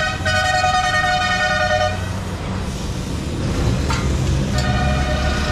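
A vehicle horn sounding long, steady blasts over a constant low rumble. One blast runs for about two seconds at the start and stops, and another begins near the end.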